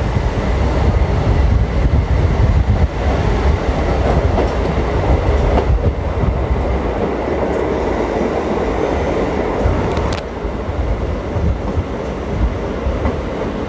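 MEMU electric passenger train running on the track, heard from an open coach doorway: a steady heavy rumble of wheels on rails with two sharp clicks, a little quieter over the last few seconds as it draws into a halt.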